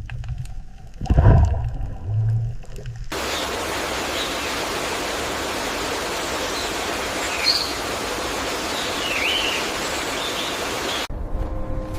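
A steady rushing noise, like running water, starts abruptly about three seconds in and cuts off abruptly near the end, with a few short bird chirps over it. Before it come a few low thuds and a short low hum.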